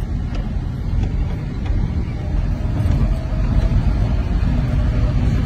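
A road vehicle running, with a steady low rumble of engine and road noise.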